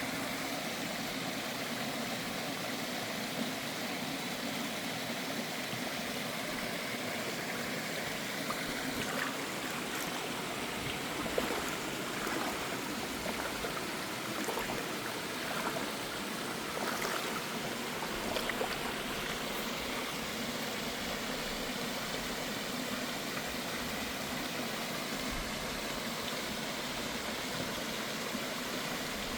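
Mountain stream water running steadily over rocks, an even rushing sound.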